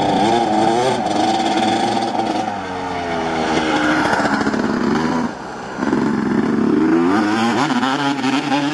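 Two-stroke motocross bike revving hard as it accelerates along a dirt track. The engine pitch climbs in repeated sweeps through the gears. Just past the middle the throttle comes off briefly, then the engine picks up and rises again.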